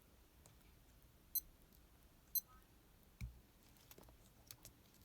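Casio F91W digital watch beeping twice, short high button-press beeps about a second apart, followed by a dull thump and a few small handling clicks.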